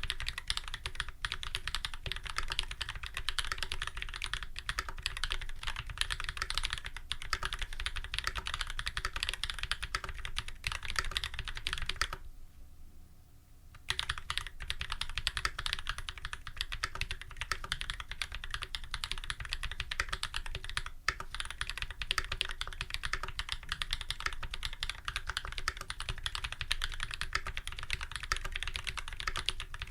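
Custom full-size mechanical keyboard with lubed Holy Panda tactile switches, a brass plate and GMK keycaps, typed on rapidly and continuously. The typing stops for about a second and a half roughly twelve seconds in, then resumes.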